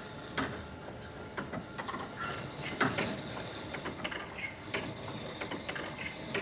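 Wool-spinning mill machinery clicking and knocking at an irregular pace, as a skein reel winds spun yarn into skeins.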